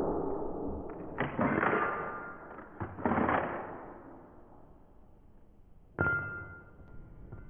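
Rifle shots fired through an aimSport Triton 50 Sneezer suppressor: four sharp, muffled reports, each followed by a short metallic ring, about a second, three seconds, six seconds and seven seconds in.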